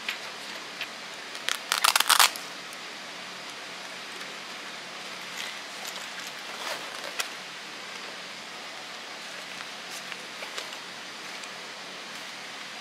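Hands handling a fabric crossbody bag: light rustling and scattered small clicks over a steady hiss, with a short, dense run of clicks about two seconds in as the loudest sound.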